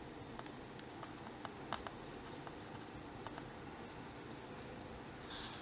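Faint, irregular little clicks and scratches of a sculpting tool carving hair lines into polymer clay, over a steady low hiss, with a brief softer scratch near the end.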